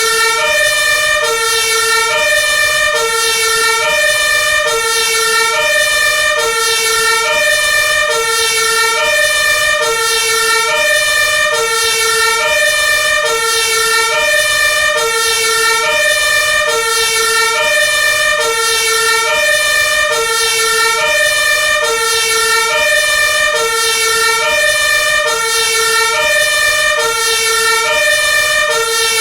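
Hi-lo two-tone siren of an Iveco Magirus Eurocargo 160E30 aerial ladder fire truck. It switches evenly between a low and a higher note about twice a second, over a steady high tone held underneath.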